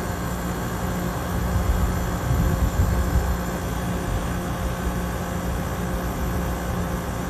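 Split air conditioner's outdoor unit running steadily during R22 gas charging: a constant compressor hum with condenser fan noise, from a system still low on refrigerant. A louder low rumble swells briefly between about one and a half and three seconds in.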